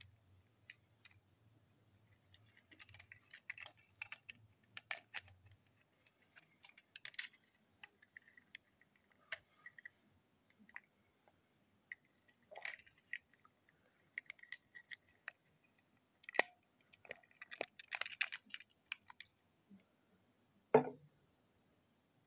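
Scattered small plastic clicks and scrapes as a white plastic hook coupling is fitted to the front of a TrackMaster toy engine, with one sharper knock near the end.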